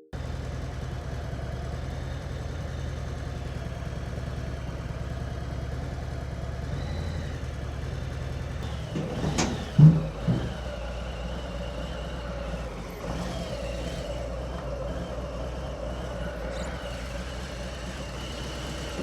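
A vehicle engine running steadily at a low rumble, with a sharp knock about nine and a half seconds in.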